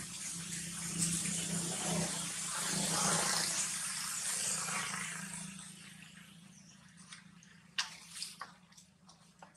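Dry leaf litter rustling and crackling as monkeys scuffle on the ground. It dies away about five seconds in, and a few faint sharp crackles of leaves follow near the end.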